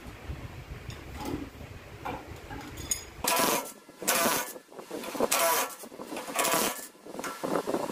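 Cordless drill running in four short bursts, each under a second, turning the screws that hold a metal lathe faceplate to a wooden blank.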